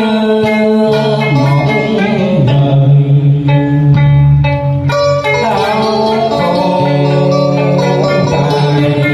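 Male vocalist singing a Vietnamese traditional đờn ca tài tử song in a drawn-out, ornamented line through a microphone. An electric guitar and a plucked lute play along.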